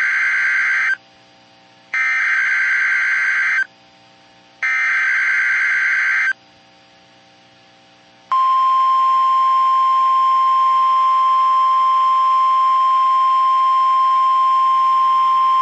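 Emergency Alert System SAME header: three bursts of warbling digital data tones, each about a second and a half long with a gap of about a second between them. About eight seconds in, the steady single-pitch NOAA Weather Radio warning alarm tone starts and holds, signalling a new alert.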